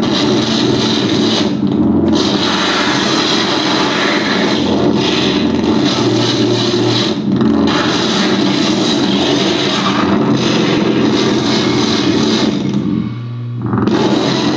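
Live harsh noise or experimental electronic music played on electronics: a dense, loud wall of noise over a steady low drone. It briefly thins and drops near the end before coming back in.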